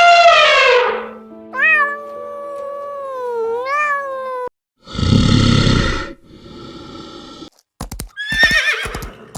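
A string of separate animal calls and sound effects: a loud call falling in pitch, a smooth gliding tone, a short noisy blast about five seconds in, then sharp clicks with a wavering call near the end.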